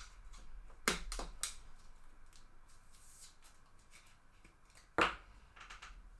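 Trading cards handled and flipped through by hand, with a few short sharp snaps and rustles as cards slide off one another: a cluster about a second in and another loud one near the end.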